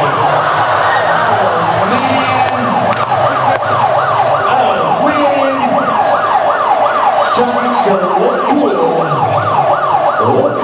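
Police car siren in its rapid yelp, its pitch sweeping up and down about three to four times a second without a break.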